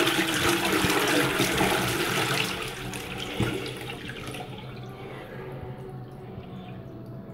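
Toilet flushing: water rushing and swirling through the bowl, then fading away from about two and a half seconds in, leaving a quieter steady sound with a faint hum.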